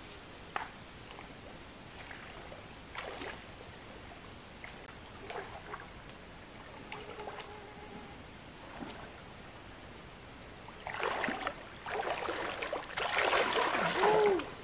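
Water splashing and sloshing, a few brief faint splashes spaced out at first, then louder, longer splashing near the end.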